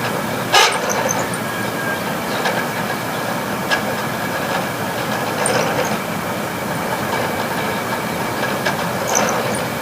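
Failing room air conditioner running with a steady mechanical clatter and a faint high whine, broken by a sharp knock about half a second in and a lighter one near four seconds. The fan blades are sloshing through water in the unit while the compressor labours in overload.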